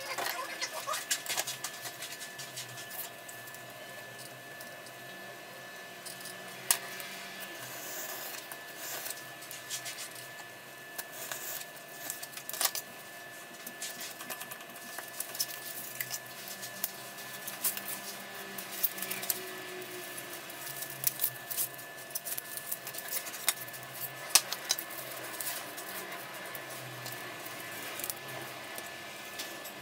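Hand crafting noise on a cutting mat: a craft knife scratching through foam board, with scattered clicks and taps as the steel ruler and pen are handled and set down.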